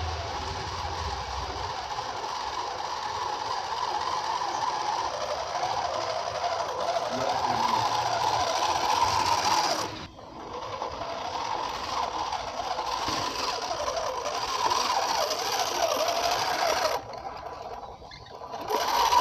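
Electric drive motor and gearbox of a homemade 1/10-scale RC dump truck whining as it drives loaded with mangoes, the pitch wavering with the load. The sound cuts off sharply about ten seconds in, resumes, and dips again near the end.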